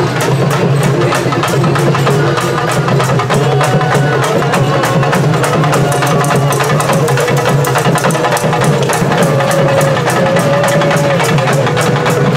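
Festival music: fast, steady drumming with a melody line held on long, wavering notes above it.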